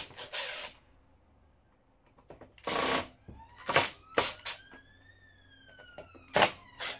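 Cordless screwdriver running in several short bursts as it backs screws out of a power inverter's metal case, with a fainter whine in the middle that rises and then falls in pitch.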